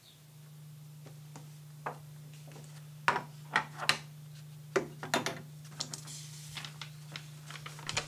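Loose sheets of paper being handled and leafed through, giving a series of irregular crisp rustles and clicks, the sharpest a little after three seconds in and again near five seconds. A steady low hum runs underneath.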